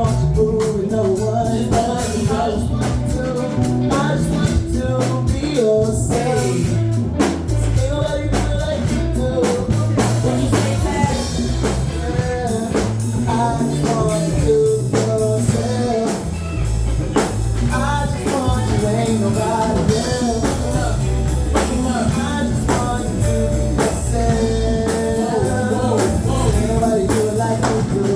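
Live band music with drum kit, bass and guitar under a sung melody with no clear words.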